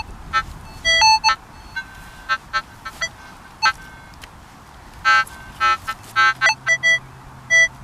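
Minelab CTX 3030 metal detector giving short beeping target tones at several different pitches, in irregular clusters, as it sounds off on a buried target. A faint steady low hum joins about six seconds in.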